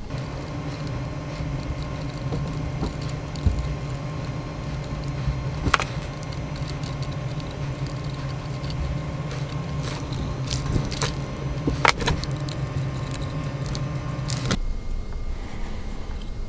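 A small motor running with a steady hum, with a few sharp clicks over it; the hum cuts off suddenly near the end.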